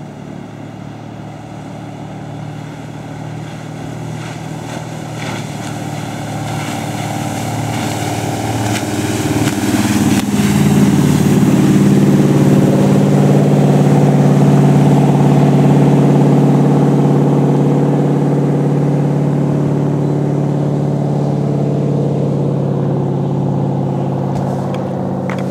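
A 1967 wooden Century Arabian runabout's inboard engine running at speed over the water, with spray hissing off the hull. It grows louder as the boat approaches, is loudest as it passes close about halfway through, then fades as it runs away.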